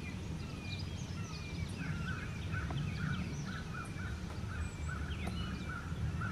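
Wild birds calling outdoors: scattered chirps and whistles, with a run of repeated short calls, about two or three a second, through the middle. A steady low rumble runs underneath.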